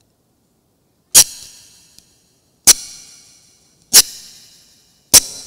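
Four loud, sharp strikes about a second and a half apart, each leaving a bright metallic ringing that fades away.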